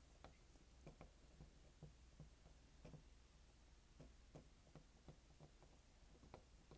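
Near silence with faint, irregular light ticks, a few a second, from a soldering iron tip worked in short strokes over a calculator's screen ribbon cable.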